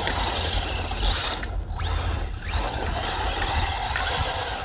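Arrma Typhon 3S brushless 4x4 RC buggy running, its drivetrain whirring and rattling in two stretches with a short drop in between.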